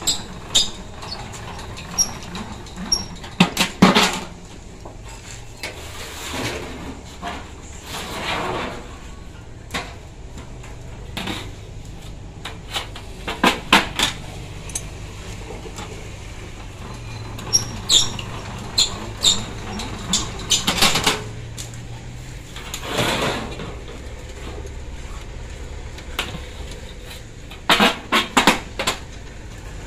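Thin sheet metal for insulation jacketing being curled by hand through a manual sheet-metal roll machine: irregular clicks and knocks of the sheet against the rollers and frame, with a few longer wobbling rattles as the big curved sheet flexes.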